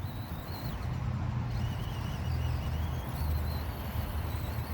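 Axial SCX24 micro crawler's small electric motor whining faintly as the truck crawls uphill, its pitch wavering with the throttle, over a steady low rumble.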